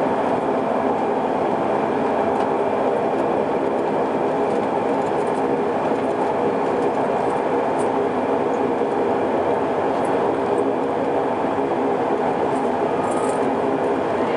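Saab 340B's twin General Electric CT7 turboprop engines and propellers running as the airliner taxis after landing: a steady drone with several held tones, heard inside the cabin.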